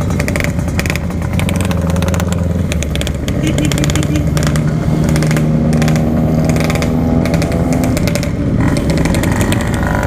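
Yamaha RX-King 135 cc two-stroke engine running under way through its Packing Power standard-style exhaust. Its pitch climbs slowly for several seconds, then drops away about eight seconds in.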